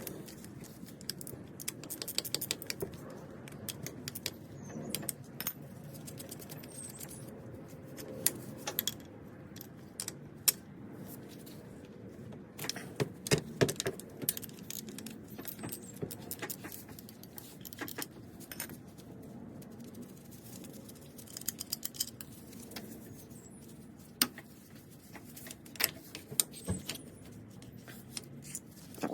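Irregular metallic clinks and clatter of hand tools and metal parts during work on an A/C compressor, with many short sharp clicks scattered throughout.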